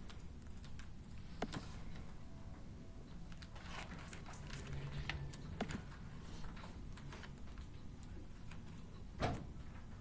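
Scattered light clicks and taps of keyboard typing over the low hum of a quiet classroom, with one louder knock near the end.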